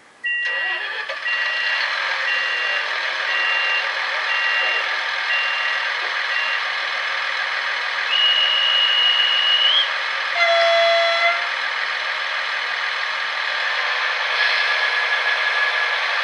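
Märklin model locomotive's sound decoder playing a departure sequence through its small speaker: a repeating two-tone beep like a door-closing warning for the first several seconds, then a held whistle blast that rises in pitch at its end, then a short horn blast, all over a steady rushing running noise.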